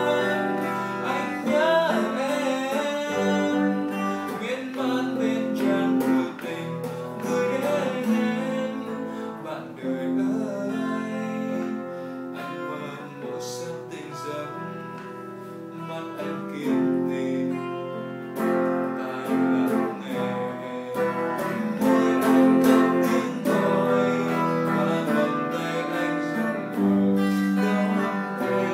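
Acoustic guitar strummed in chords, with a man singing along at times.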